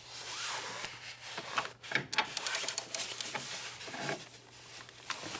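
Hand ratchet tightening transmission-mount bolts: a rustle of handling, then a run of quick, uneven ratchet clicks about two seconds in.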